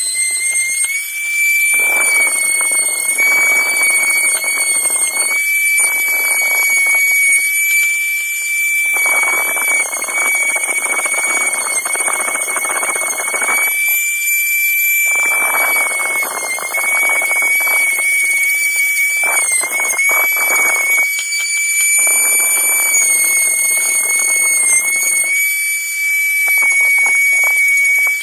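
Small handheld rotary tool running with a steady high whine, its pitch sagging briefly now and then under load. It is broken by several stretches of grinding noise, each a few seconds long, as the spinning disc is worked against the steel pliers.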